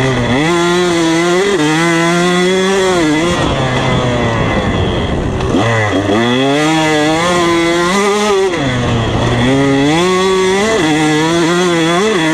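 Two-stroke KTM 125 SX motocross bike with a 150cc cylinder kit and FMF exhaust, ridden hard through deep sand. The engine revs climb and fall three times as the throttle is opened and shut through the corners.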